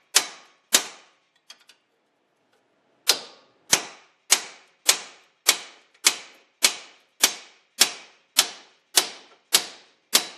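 Hammer striking a steel chisel held against a seized front wheel hub, driving it around the hub to break it loose. Sharp metal blows, each ringing briefly: two, a pause of about two seconds, then a steady run at a little under two blows a second.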